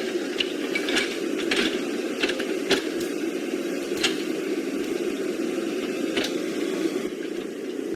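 Small electric motor and gearbox of a radio-controlled toy vehicle running steadily with a droning whine, with sharp plastic clicks and knocks scattered through, most of them in the first half.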